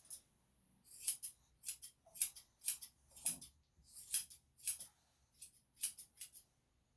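Grooming scissors snipping a Yorkshire Terrier's coat: an irregular run of short, sharp snips, about two a second, some in quick pairs.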